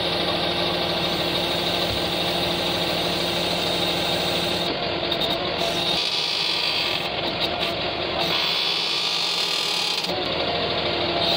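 Truck engine running steadily under load to drive a truck-mounted knuckle-boom crane's hydraulics while it lifts a concrete beam. The tone of the engine and pump shifts about six seconds in and again near the end as the boom is worked.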